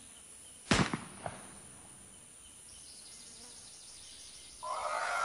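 A single gunshot, a sharp crack about a second in followed by a fainter echo, from a poacher's gun killing an elephant. Near the end a loud, steady sound comes in and holds.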